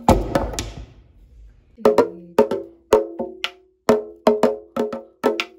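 A sogo, the small handled Korean hand drum, beaten with a wooden stick. A quick flurry of hits opens it, then after a short pause comes a steady nongak-style rhythm of sharp knocks, often in pairs, each with a short ringing tone.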